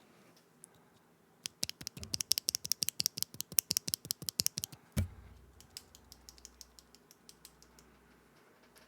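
Loose Akko × HMX Stellar Rose linear switches being worked by hand: a rapid run of small plastic clacks, about ten a second, ending in a single thump about five seconds in, then fainter, sparser clicks.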